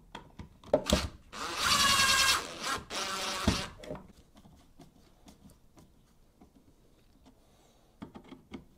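A screwdriver driving the mounting screws of an electrical receptacle into its box. A few clicks come first, then a high-pitched squeal lasting about a second, then a shorter, softer one with a knock.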